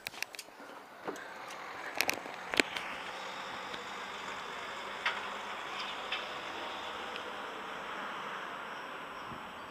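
Steady hum of distant city traffic, with a few sharp clicks from the camera being handled in the first few seconds.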